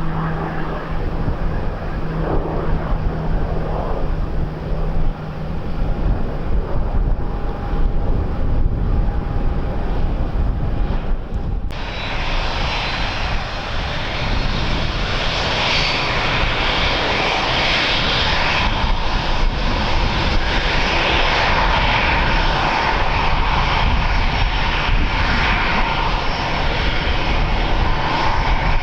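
Airliner engines running, with wind rumbling on the microphone. About twelve seconds in the sound changes abruptly to a louder, brighter engine noise that holds steady to the end.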